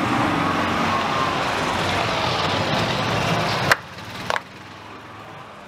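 Car engine running at speed with its pitch slowly falling, as of a car passing on the track. It cuts off abruptly with a sharp click about three and a half seconds in, leaving quieter background noise and a second click.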